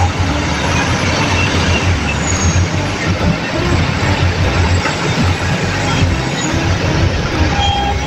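Large SANY hydraulic crawler excavator working, its diesel engine running under load as it digs and swings to load a dump truck: a steady low rumble with a rough hiss over it.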